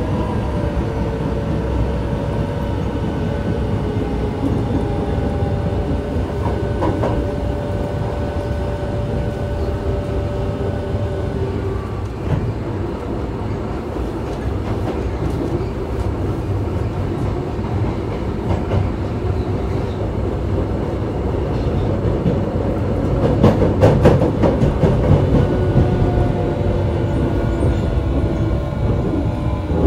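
Osaka Metro 24 series subway train running, heard from inside the car: the whine of its Hitachi IGBT VVVF inverter and traction motors falls slowly in pitch as the train slows under braking, over a steady rumble of wheels on rail. About 23 seconds in, a few seconds of louder wheel clatter over the track.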